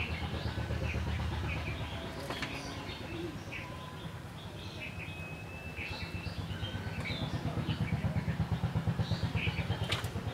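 Small birds chirping in short calls, with now and then a thin held whistle, over a low pulsing hum from an unseen motor. Two sharp clicks stand out, one early and one near the end.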